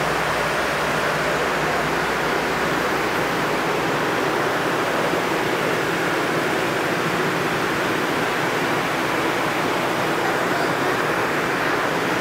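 Steady, loud machinery noise: an even rushing sound with no distinct tone or rhythm, unchanging throughout.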